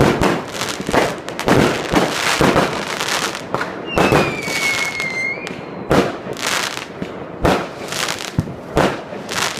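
Fireworks and firecrackers going off, a quick series of sharp bangs and crackles. About four seconds in, a whistling firework gives a single whistle of about a second that falls slightly in pitch.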